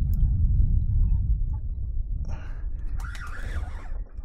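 Wind buffeting the microphone: a steady low rumble, with brief higher rustling noises about two and three seconds in.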